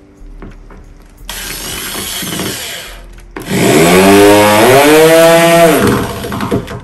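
Corded electric drill boring into a particleboard cabinet panel: a shorter run about a second in, then a longer, louder run about three seconds in, the motor whine rising as it spins up and dropping as it winds down.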